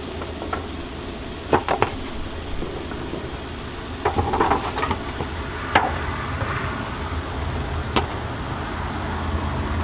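Sweet potato slices sizzling on a hot Blackstone flat-top griddle over a steady low hum, with a few light clicks and taps as slices are set down on the griddle from a foil pan.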